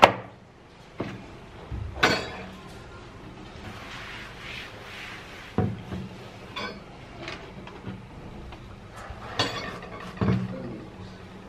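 Handling knocks and clicks of a personal blender jar being twisted off its motor base and its blade cap unscrewed: a string of short, sharp clacks, the loudest right at the start.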